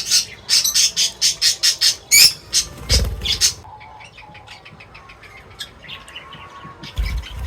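Birds squawking in a fast run of harsh calls, about four or five a second, that stops about three and a half seconds in, followed by fainter scattered chirps. Two brief low rumbles come about three seconds in and near the end.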